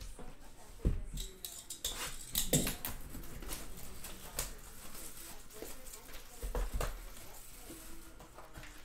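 Crinkling and rustling of clear plastic shrink wrap and foil trading-card packs being handled and torn open, with a few dull knocks as the card box is handled on the table, about a second in, near a third of the way through and again later.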